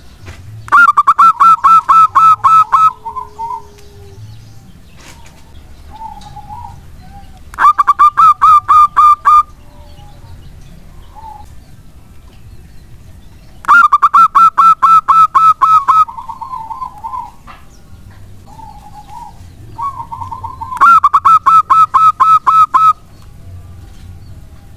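Zebra dove (perkutut) singing: four loud bouts of rapid staccato cooing, each about two seconds long at roughly four notes a second, with a few softer single coos between them.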